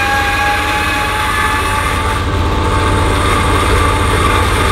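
Electric tongue jack on an Airstream trailer running, a steady motor whine over a low hum, as it lowers the coupler onto the hitch ball.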